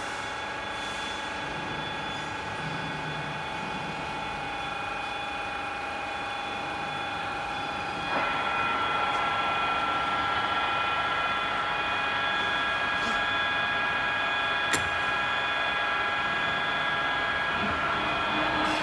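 Z30125 radial drilling machine's spindle drive running with a steady whine of several held tones while a twist drill cuts into a workpiece clamped in a vise. The sound steps up in loudness about eight seconds in, and there is one sharp click about three-quarters of the way through.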